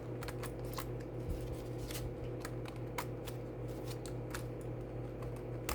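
Light clicks and rustling of paper budget sheets and envelopes being handled, over a steady low hum.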